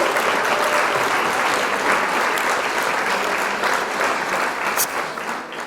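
Crowd applause, many hands clapping in a dense patter that fades out near the end.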